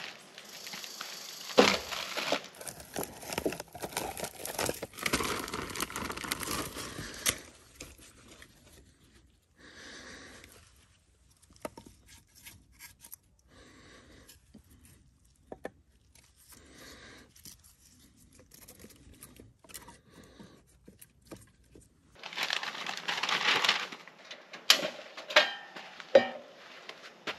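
Paper and a plastic zip-top bag crinkling and tearing for several seconds, then a quieter stretch of scattered light knocks as split firewood is set in a metal fire ring. Near the end comes a louder burst of newspaper being torn and crumpled.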